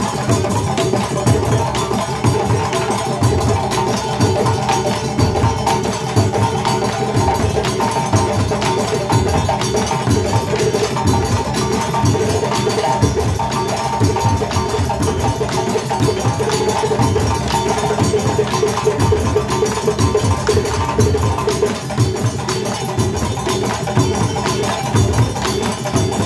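West African drum ensemble of djembes and tall stick-struck drums playing a fast, unbroken rhythm.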